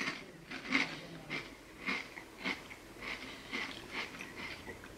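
Potato chips being chewed, with short crunches at about two a second.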